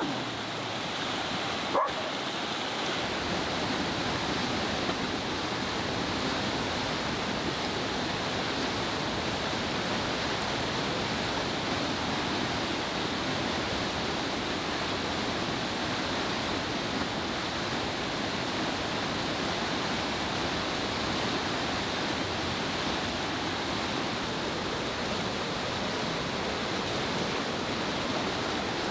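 Steady rushing of a fast, flooded river. A golden retriever barks once about two seconds in.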